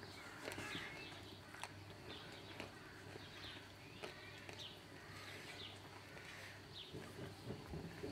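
Faint birds chirping in the background, short high chirps every second or so, with a few soft clicks.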